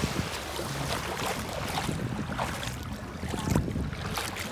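Bare feet wading through ankle-deep seawater, with several short splashes as the feet move, over a low wind rumble on the microphone.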